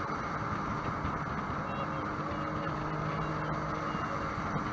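Sea-Doo jet boat under way, its engine giving a steady drone over the rush of water and wind past the hull.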